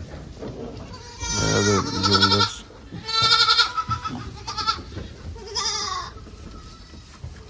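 Goat kids bleating, about five separate calls, the loudest in the first half.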